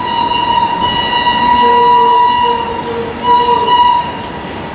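FS Gr 625 steam locomotive and its train rolling slowly into the station, with a shrill sustained tone over the running noise. The tone breaks off about three seconds in, sounds again briefly, and stops about four seconds in.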